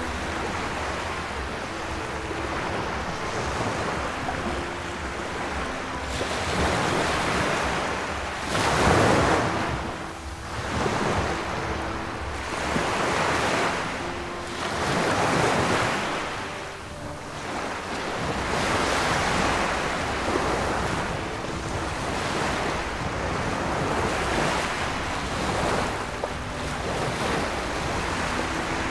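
Small waves washing onto a sandy shore, swelling and receding in repeated surges, with wind on the microphone.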